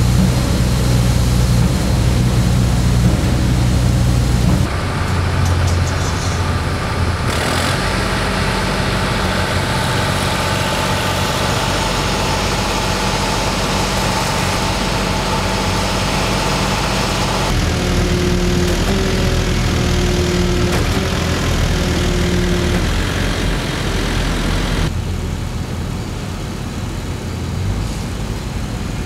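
Engines of heavy construction machinery running steadily, with a low hum, the sound changing abruptly several times from one shot to the next. Near the end, a yellow mobile crane's engine idling.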